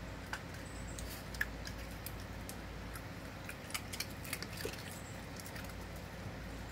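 Scattered light clicks and small wet splashes: ice cubes knocking about in a plastic bowl of water as an American Eskimo Dog pushes her muzzle in to fish them out. A few clicks are a little louder, near the middle.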